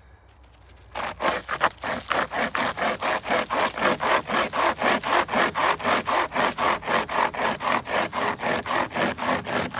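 Hand chainsaw (a saw chain pulled by two handles) cutting through a branch about 7 cm thick, its teeth rasping through the wood in fast, even back-and-forth strokes, about three a second, starting about a second in.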